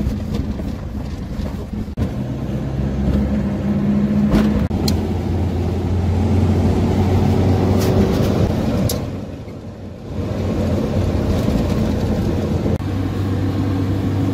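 A road vehicle driving, heard from on board: a steady engine hum with road noise. A few sharp ticks come midway, and the engine dips briefly about ten seconds in before picking up again.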